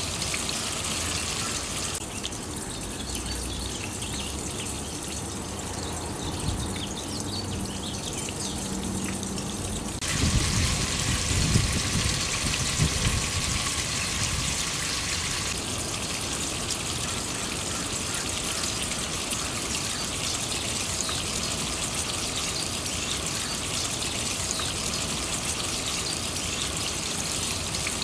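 Water splashing and trickling steadily down a copper rain chain, with a louder, deeper rush for a few seconds in the middle.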